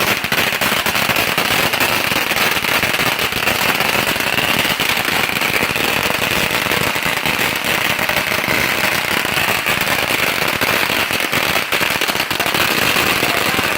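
Firecrackers going off in a dense, continuous rattle of rapid pops at a steady level, like a long string of firecrackers burning through.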